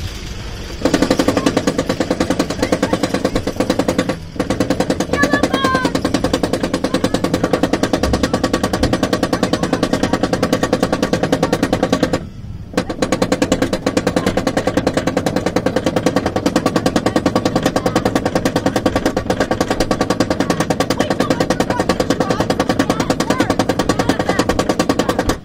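A steel hyper coaster's chain lift clacking in a rapid, even rhythm as the train climbs the lift hill; the rattle of the anti-rollback dogs over the ratchet starts just under a second in and breaks off briefly twice.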